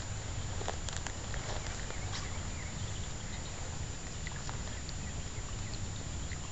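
Steady low outdoor background noise with scattered faint, short chirps and clicks.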